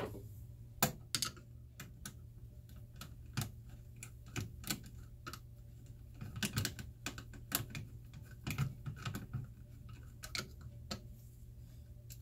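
Irregular sharp clicks and taps of a small hand tool on the Leslie 122 amplifier's chassis and the filter can capacitor's mounting screw as the screw is worked, over a steady low hum.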